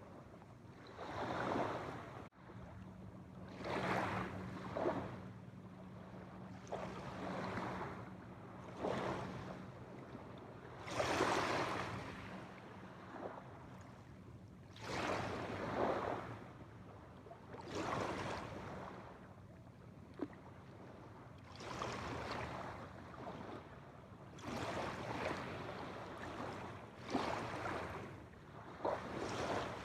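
Small waves washing onto a shore, each swell of surf rising and fading away every two to three seconds.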